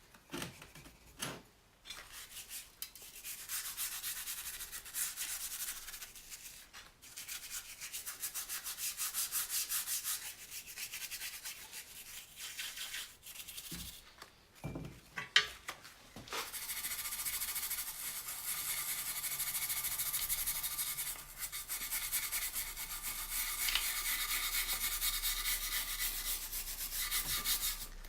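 A brush scrubbing the BMW R80's aluminium engine casing during degreasing, in rapid back-and-forth strokes. It comes in several passages with short pauses, then a longer, steadier stretch through the second half.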